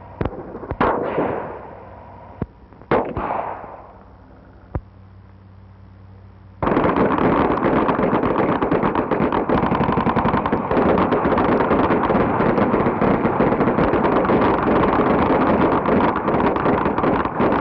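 A few separate gunshots, each ringing out with an echo, followed a few seconds later by a long unbroken rattle of machine-gun fire lasting about eleven seconds, on an old newsreel soundtrack.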